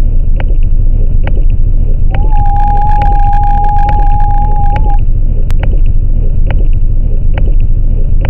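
Harsh noise music: a loud, dense low rumble with a sharp click about once a second, and a steady high held tone that enters about two seconds in and stops near five seconds.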